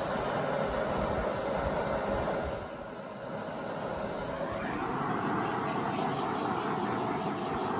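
Handheld torch flame hissing steadily, easing off briefly about two and a half seconds in, then running again with a steady tone in it.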